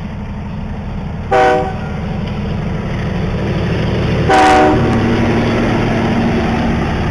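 Locomotive air horn sounding two short blasts about three seconds apart, over the steady low rumble of a train that slowly grows louder.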